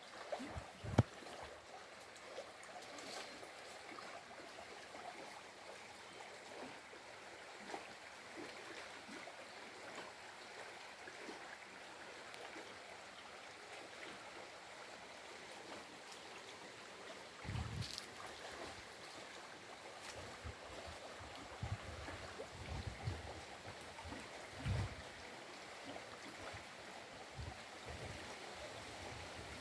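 Stream water flowing steadily, with wind buffeting the microphone in low gusts over the second half.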